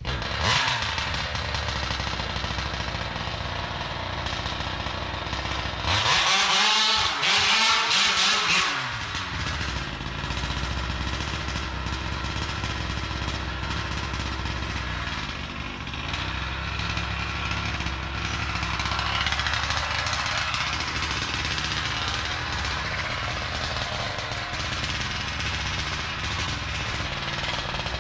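The 50cc two-stroke gas engine of a large-scale RC truck running under throttle on a hill climb. The engine is loudest between about six and nine seconds in, its pitch swinging up and down as it revs.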